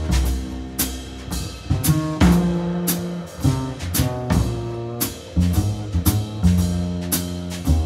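Small jazz band playing live, the drum kit loudest with frequent sharp hits and cymbal crashes over upright bass notes and held guitar chords.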